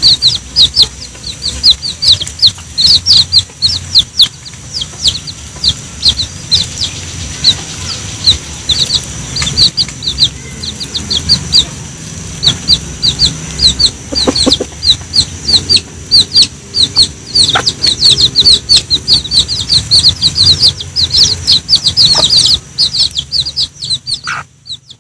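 Baby chicks peeping, a rapid stream of short high falling peeps several times a second, with the mother hen's low clucking beneath them as the brood feeds. The sound fades out just before the end.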